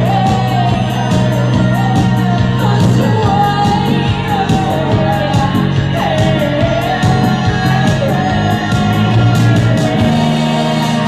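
Live rock band playing with a lead singer: a wavering sung melody over steady bass, with cymbal strokes keeping a regular beat.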